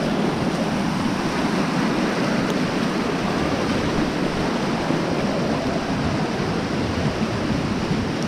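Flood-swollen stream rushing fast past the bank, a steady, unbroken wash of water noise.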